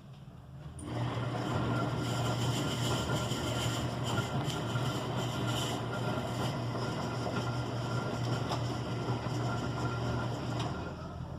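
Electrolux LE05 washing machine running with a steady mechanical hum and rushing noise, starting about a second in and stopping shortly before the end.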